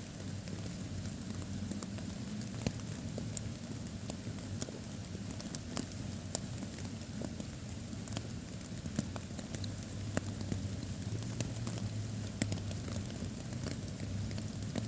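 Rain falling, with many scattered drops pattering and ticking close by at irregular moments, over a steady low hum.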